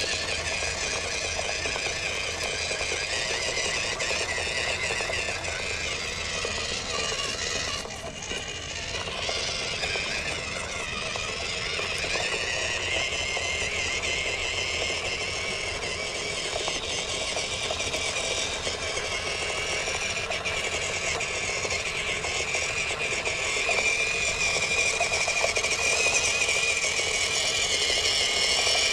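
Small RC truck running: the electric 370 motor and single-speed gearbox whine steadily, with the pitch shifting a little as the throttle changes. There is a brief drop about eight seconds in, and it gets somewhat louder near the end.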